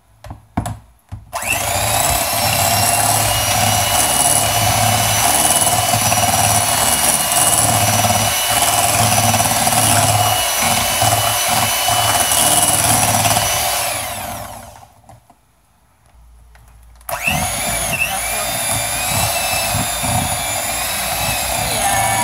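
Electric hand mixer whipping a thick body-lotion mixture in a glass bowl: a few clicks, then the motor running steadily for about twelve seconds before it winds down and stops. After about two seconds of quiet it starts again with a rising whine and keeps running.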